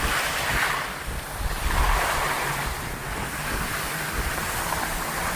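Wind buffeting the microphone, a rushing noise that swells and fades a couple of times.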